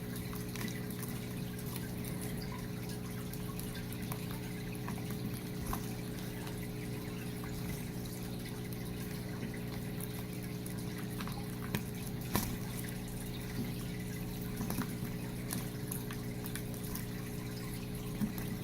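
Lovebirds bathing in a shallow bowl of water: light, scattered splashes and drips, with a few sharper splashes about two-thirds of the way through, over a steady low hum.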